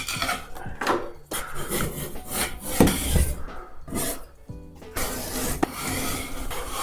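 Scraper prying and ripping old ceiling tiles off a ceiling: rough scraping and tearing in irregular bursts, with a louder knock near the middle. Background music plays underneath.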